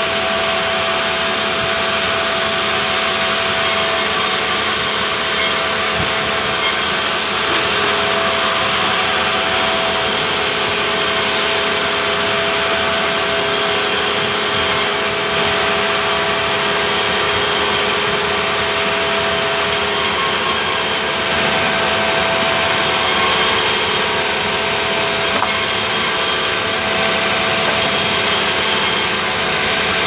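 Sawmill band saw running steadily and ripping planks from a pulai log: a continuous machine noise with two steady held tones.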